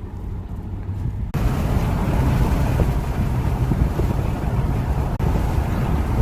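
Car driving with a low engine and road rumble. A little over a second in, a loud steady rush of wind noise cuts in suddenly and continues.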